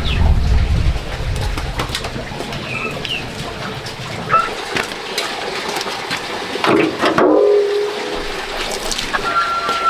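Birds chirping a few short calls over outdoor background noise, with a low rumble in the first second or two and a brief lower-pitched sound about seven seconds in.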